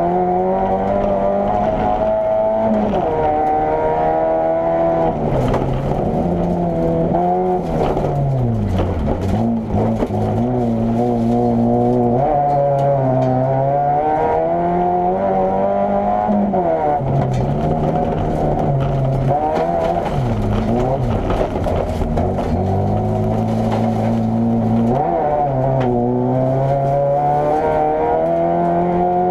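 Opel Corsa A GSi competition car's four-cylinder engine, heard from inside the cabin, revving hard with its pitch climbing under acceleration and dropping sharply at each gear change, over and over, as it is driven at race pace.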